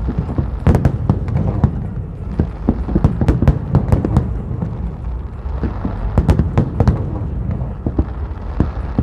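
Fireworks display going off: a rapid, irregular string of sharp bangs and crackles, several a second, over a continuous deep rumble of aerial shells bursting.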